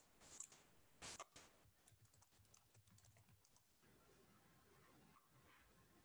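Faint typing on a computer keyboard: a few louder clacks in the first second and a half, then a quick run of light keystrokes that stops before the four-second mark, leaving near-silent room tone.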